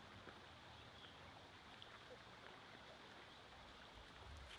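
Near silence with the faint, steady rush of a shallow stream running over stones.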